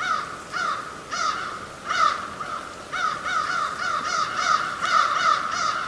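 Crows cawing: a run of short, harsh caws, about two or three a second, coming faster after about three seconds.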